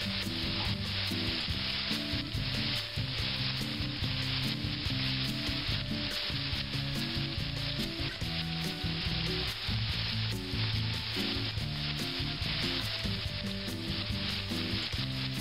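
Chicken breasts searing in a hot skillet under a mesh splatter screen, with a steady, even sizzle and a low, uneven rumble underneath.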